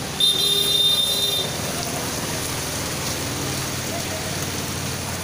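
Floodwater flowing fast along a street: a steady rushing noise. A brief high steady tone, about a second long, sounds just after the start.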